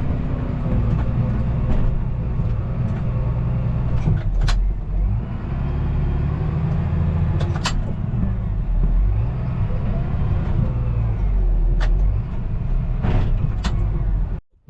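Tractor engine revving up and falling back in several long swells as the tractor, stuck in mud, tries to drive out, with a few sharp knocks along the way. The sound cuts off suddenly near the end.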